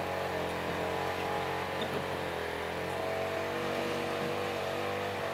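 A motor running steadily: a constant hum whose pitch wavers slowly up and down.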